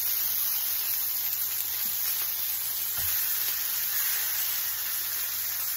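Salmon fillets sizzling steadily in olive oil on a hot grill pan as they are turned over with tongs. There is a faint knock about three seconds in.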